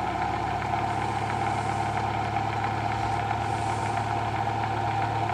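Bedini SSG pulse motor running: the magnet wheel spins between the drive coils, and the pulsed coils give a steady, even hum.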